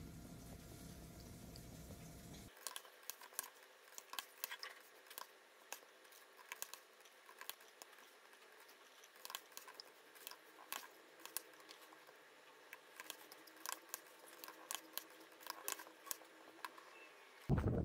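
Laptop keyboard keys clicking in an irregular patter as someone types, after a low steady hum in the first two seconds or so.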